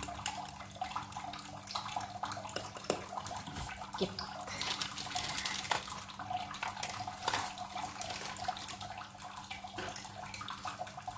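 A metal spoon scooping granulated sugar from a jar and tipping it into a ceramic bowl: scattered small clinks and scrapes over a steady hiss.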